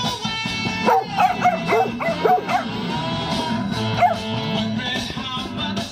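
Dogs yipping and whining in many short, sliding cries over loud music. The dogs are stirred up by the song, which the owner thinks is down to its horns.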